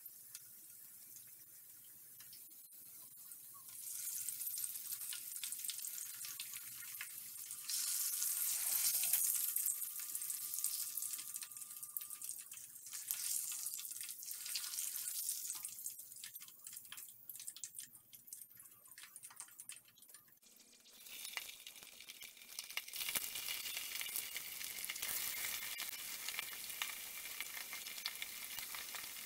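Hot oil sizzling in a wok as onion slices fry, the sizzle swelling and easing several times. Near the end it flares up louder as whole fresh anchovies go into the oil.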